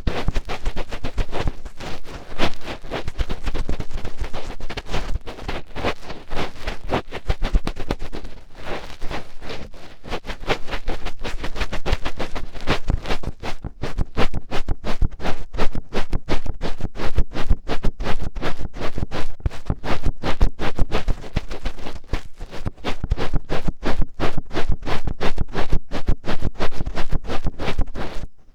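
Fingertip scratching and rubbing deep inside an ear: a dense, continuous run of rapid scratchy crackles.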